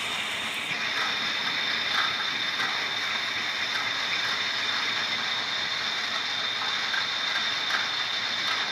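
Metal lathe running with a steady high whine over mechanical noise, with scattered light clicks and ticks from the work.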